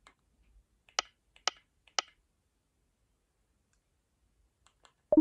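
Three sharp clicks about half a second apart from an accessibility switch button being pressed to drive iPad Switch Control, followed at the very end by a brief, louder sound.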